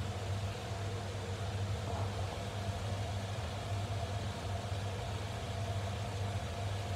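A steady low hum with a faint steady tone above it, over an even hiss, unchanging throughout.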